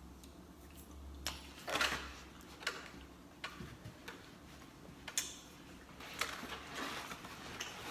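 Close-up mouth sounds of chewing pizza: scattered wet smacks and clicks, with a longer, noisier smack about two seconds in and a cluster near the end.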